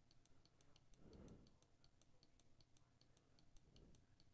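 Near silence: faint room tone with a quick, even ticking, about five ticks a second.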